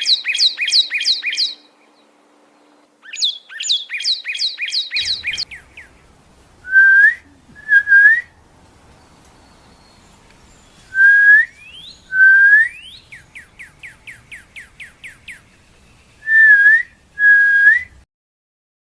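Northern cardinal singing loud, clear whistles. First come two phrases of quick repeated down-slurred notes, then pairs of rising slurred whistles, with a fast run of short notes between them. The song stops shortly before the end.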